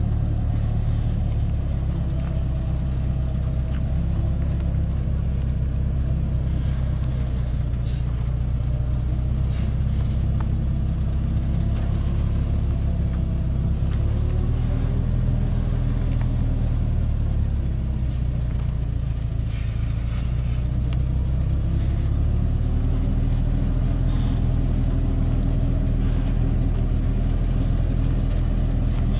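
Engine of a truck loaded with acacia logs running under load as it crawls along a rutted dirt forest track, a steady low rumble whose pitch rises twice with the throttle, about halfway through and again later.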